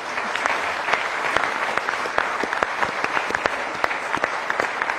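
Studio audience applauding, many hands clapping steadily at a lively pace.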